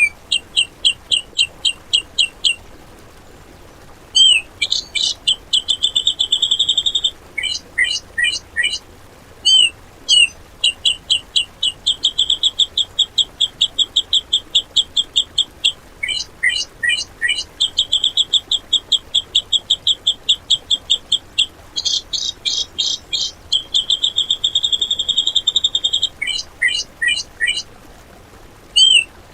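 Cucak jenggot (grey-cheeked bulbul) singing in loud, clear phrases with short pauses between them. Its phrases are rapid runs of sharp repeated high notes, fast trills and long buzzy held notes, the harsh 'tembakan' (shot-like) calls prized in training recordings. The same opening phrase returns near the end.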